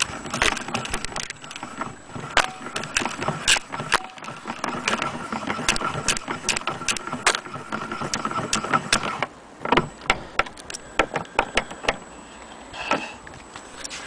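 Irregular clicks, knocks and rattles from an antique wind-up gramophone being handled: its wooden cabinet, winding crank and turntable. A faint steady whine runs under the first nine seconds or so.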